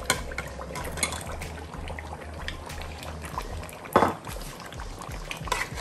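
Raw potato chunks tipped from a bowl into a pot of simmering curry, plopping and splashing into the sauce, with the simmering sauce bubbling underneath. A single louder knock against the pot about four seconds in.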